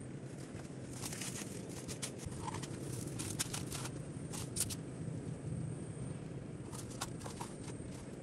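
Dry twigs snapping and rustling in small clusters of sharp clicks as they are broken by hand and fed into a small wood fire under a clay cooking pot, over a steady low outdoor rumble.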